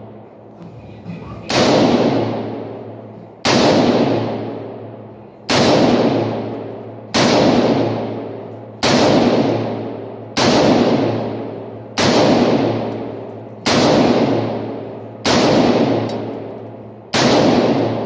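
AR-15 rifle in 5.56 NATO fired shot by shot, ten shots about one every 1.7 seconds, each crack ringing out for over a second in the enclosed indoor range.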